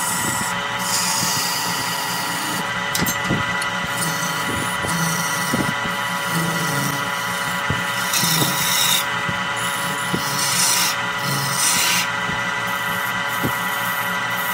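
Wood lathe running with a steady motor whine while a hand-held gouge cuts into the spinning redwood blank, the scraping, hissing cut rising in several bursts as the tool is pressed in.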